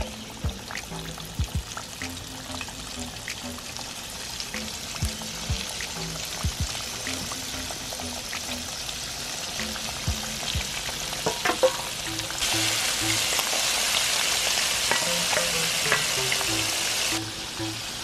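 Floured whole fish deep-frying in hot oil in an electric fryer pan: a steady sizzle full of crackles and pops. Metal tongs knock against the fish and pan a few times around the middle. The sizzle turns abruptly louder for several seconds in the second half.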